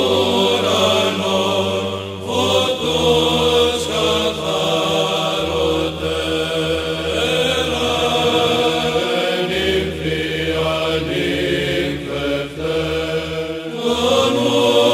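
Chanted vocal music: a sung melody over a held low drone note that steps to a new pitch a few times.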